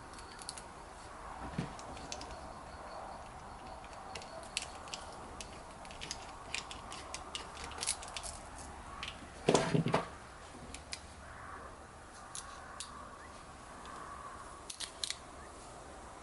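Cheap Gordon stainless steel folding knife being opened and closed repeatedly: scattered sharp metallic clicks of the blade and lock bar, with one louder clatter about two-thirds of the way through. The lock is being tested for lockup after the lock bar edge was filed down because it would not engage.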